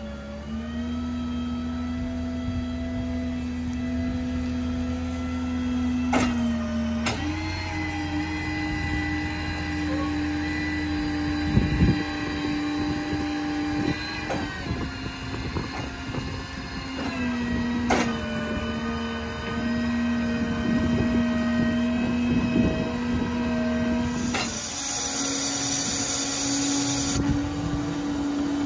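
Hydraulics of a Stellar 7621 truck-mounted crane running as the boom is operated: a steady machine whine that shifts up or down in pitch each time a crane function is switched, with a click at most changes. A hiss joins in for a few seconds near the end.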